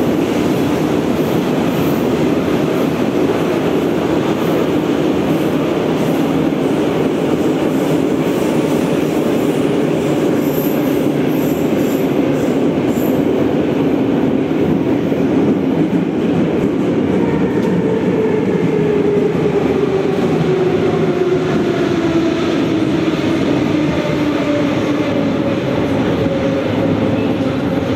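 Metro train running, heard from inside the car: a steady rumble of wheels and motors with a whine. About halfway through, the whine starts to fall slowly in pitch as the train slows.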